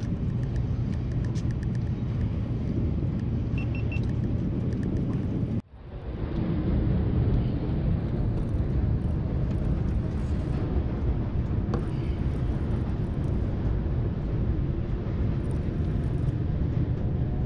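Steady low rumble of wind buffeting the microphone on open water, cut off abruptly for a split second about six seconds in, then resuming.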